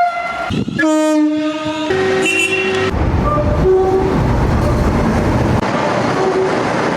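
Train horn blasts: a high note cuts off at the start, a lower note sounds about a second in, and a different note follows straight after it. From about three seconds in, the noisy rumble of a moving train takes over, with a few fainter short horn notes.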